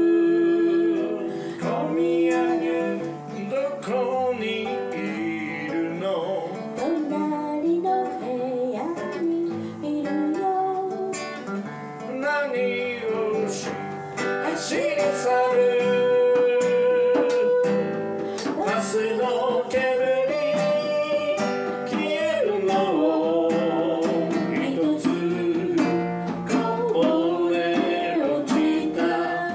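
A man singing into a microphone while playing an acoustic guitar, with held, gliding vocal notes over plucked chords.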